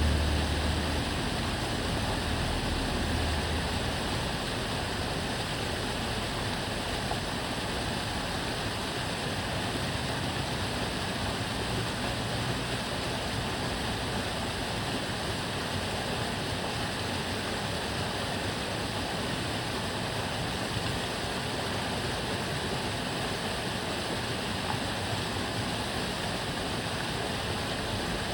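Steady rushing of water flowing in the Tamagawa Jōsui canal. A low rumble of a passing car rises over it in the first few seconds and fades, with a fainter one about halfway through.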